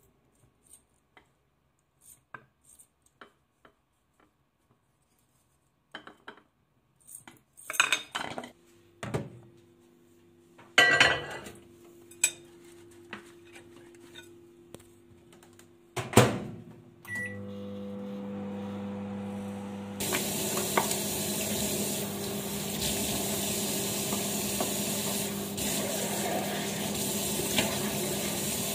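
A spoon clinking against a bowl, then dishes clattering as a dish goes into a microwave oven. The door knocks shut, a short beep sounds and the microwave starts humming. From about two-thirds of the way in, a kitchen tap runs steadily over the microwave hum.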